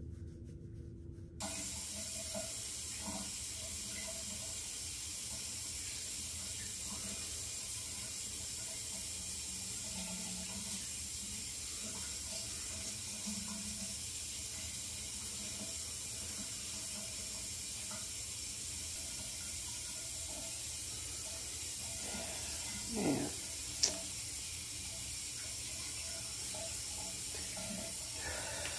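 Steady hiss of running water, like a tap left running, starting abruptly about a second in. Near the end there is a short handling sound and a sharp click.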